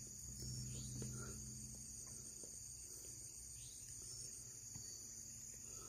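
Crickets and other night insects chirring steadily, a high, unbroken trill.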